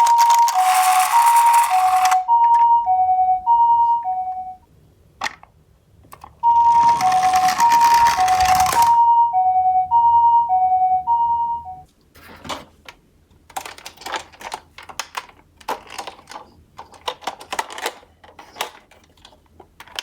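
Japanese ambulance 'pee-po' two-tone siren alternating a high and a low note about twice a second, in two spells with a short gap between them. A loud rushing rattle of die-cast minicars rolling down a slope comes at the start of each spell, and scattered clicks and knocks of the toy cars follow in the second half.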